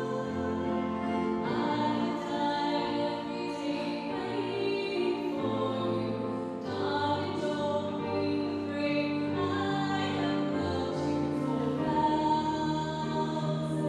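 Slow choral music: voices holding long sustained notes in chords that change every second or two.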